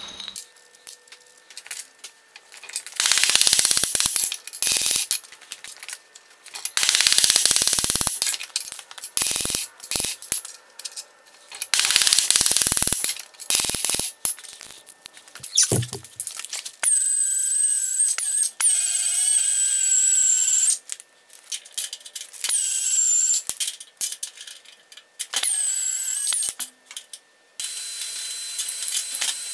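Metalworking with power tools: rough, noisy bursts through the first half, then a power tool's motor whining in four runs of a second or two each.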